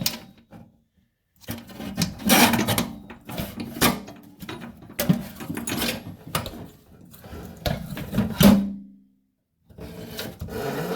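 Knocking, clattering and scraping of an old kitchen faucet being wrestled and pulled at through the sink deck, its hose still held from below by the pull-down weight. About eight and a half seconds in comes the loudest sound, a short low-pitched tone.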